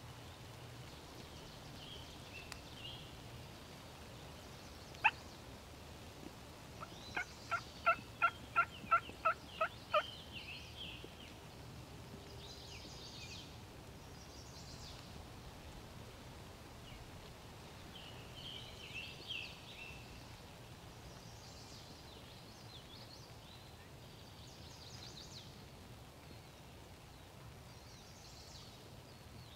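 Turkey calling: one sharp note about five seconds in, then a run of about nine evenly spaced notes over some three seconds. Small birds chirp now and then.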